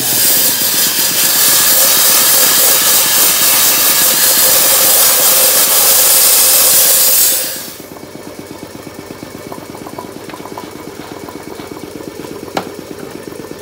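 Homemade sandblaster, a sand-filled plastic Coke bottle fed by a compressed-air hose, blasting sand at a motorcycle fork tube: a loud steady hiss that cuts off suddenly about seven and a half seconds in. An air compressor keeps running with a steady rhythmic chug throughout, and there is a single sharp click near the end.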